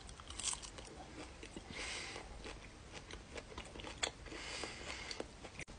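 Faint chewing of a Slim Jim beef stick eaten together with its cheese stick: a bite, then soft, scattered mouth clicks and squelches.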